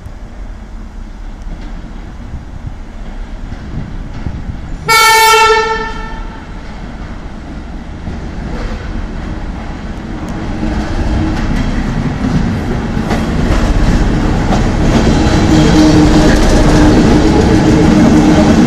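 A train sounds one short horn blast, a single pitched note about a second long, about five seconds in. Then the train approaches, its running noise and engine hum growing steadily louder.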